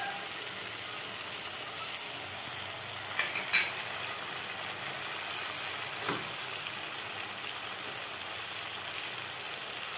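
Mustard paste in oil sizzling gently in an aluminium kadhai over a low gas flame, a steady soft hiss. A few short clicks come around the middle.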